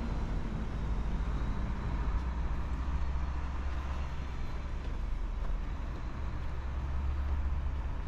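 Steady city street traffic: a low, even rumble of passing vehicles.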